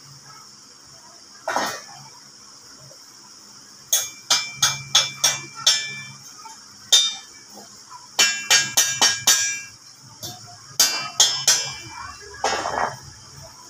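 Hammer striking steel parts of coil-spring arm-wrestling gear, in several quick runs of sharp blows that ring after each hit.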